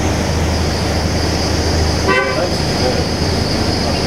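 A vehicle horn gives one short toot about two seconds in, over a steady low engine rumble of traffic and a steady high-pitched whine.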